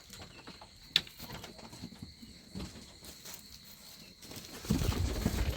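Young guinea fowl faintly chirping, with wings flapping. There is a sharp click about a second in and a burst of low noise near the end.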